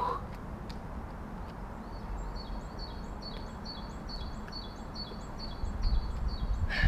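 A small songbird repeating a short high chirp about three times a second, starting about two seconds in, over a low rumble that swells in the last second. There is a brief louder sound near the end.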